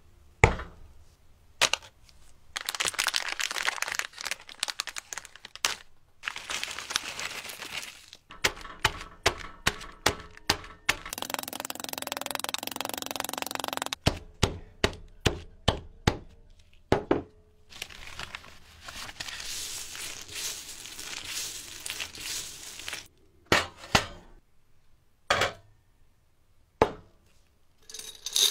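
Hands-on restoration work on a teapot: sharp knocks and clicks, some in quick runs, between several stretches of rubbing or scraping noise a few seconds long.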